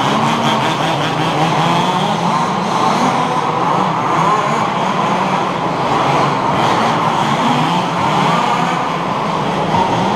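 Several 1/5-scale HPI Baja RC cars racing, their small two-stroke petrol engines revving up and down over one another in a continuous loud buzz.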